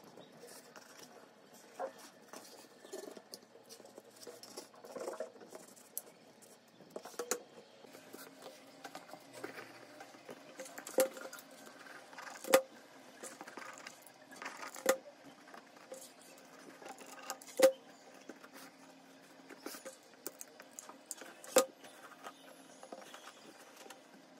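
Handling noises from crafting with cardboard, fabric and a hot glue gun: scattered soft taps, clicks and rustles, with a handful of sharper knocks in the second half. A faint steady hum runs underneath from about a third of the way in.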